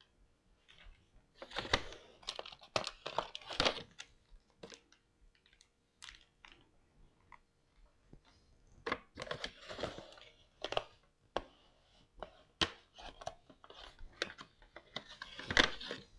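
Crinkling and rustling of plastic packaging as small action-camera accessories in bags are picked up and laid out on a desk, with irregular light clicks and knocks of plastic parts set down.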